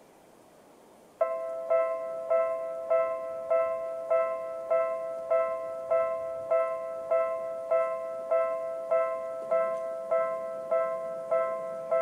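Japanese railway level-crossing warning alarm in the Seibu Railway style, an electronic bell-like tone. It switches on about a second in and repeats at about one and a half to two strikes a second, signalling that a train is approaching and the barriers are coming down.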